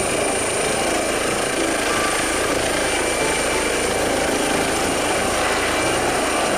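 Eurocopter EC135 air ambulance helicopter lifting off and climbing, its rotor and turbine running steadily with a thin high turbine whine over the rotor noise.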